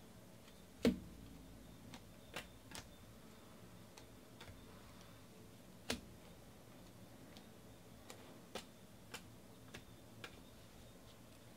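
Baseball cards being sorted by hand: scattered soft clicks and taps as cards are flicked through and set down, with a louder knock about a second in and another about six seconds in.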